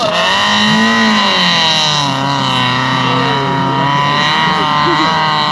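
Mitsubishi Pajero TR4's engine running hard at high revs while the 4x4 climbs a steep off-road slope, its pitch wavering a little as the load changes.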